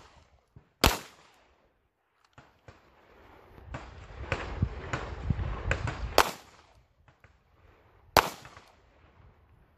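Three single pistol shots, each a sharp crack with a short tail: about a second in, about six seconds in, and about eight seconds in. A low rumbling noise rises and falls between the first and second shots.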